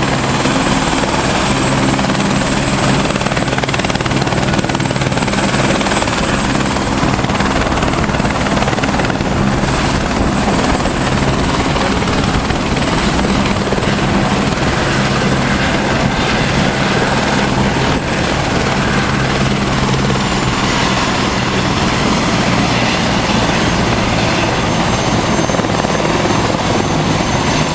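Helicopter turbine engine and rotors running steadily: a low, even rotor thrum with a thin high turbine whine above it.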